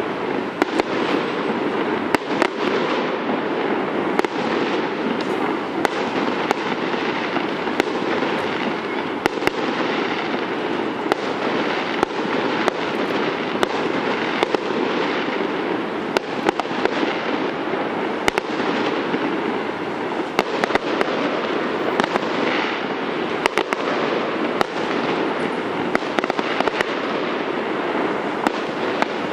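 Aerial fireworks bursting over a harbour: a continuous wash of noise with many sharp bangs at irregular intervals throughout.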